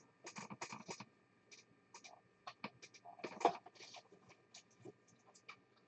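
Faint handling noise: scattered small clicks and scratches, with a louder rustle about three and a half seconds in.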